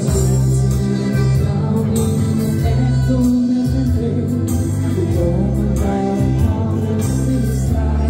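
Pop song played through a PA system: a backing track with a bass line and a steady beat, with singing.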